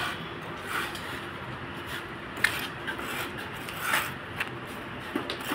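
Metalwork on a stainless steel railing: a low steady hiss with a few scattered sharp clicks and taps of metal.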